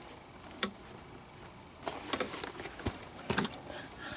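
Leather baseball glove and lacing tools being handled during relacing: a few sharp clicks and taps, the loudest about three and a half seconds in.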